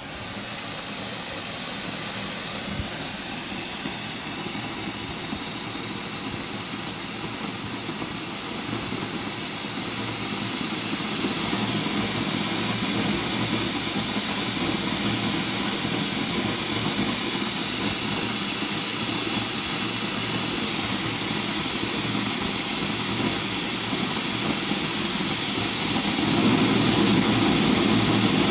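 LPG torch burner flame hissing steadily, getting louder as the PID controller's signal opens the proportional gas valve wider, with a further jump in level near the end.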